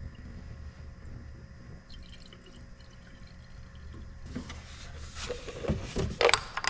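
Antifreeze poured from a plastic jug into a coolant reservoir: about four seconds in a splashing, trickling pour begins and grows louder toward the end, over a low steady hum.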